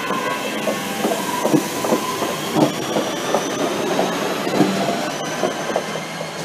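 Class 323 electric multiple unit passing at speed, its wheels knocking rapidly over rail joints with a faint rising electric motor whine, getting quieter near the end as it draws away.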